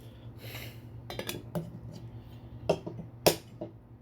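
Handling noise: a brief rustle, then several sharp clacks and knocks as small collectible figures and their packaging are picked up and set down, the loudest a little over three seconds in.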